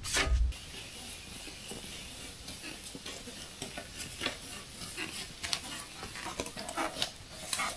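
A low thump, then faint scattered ticks and rustling over a steady hiss.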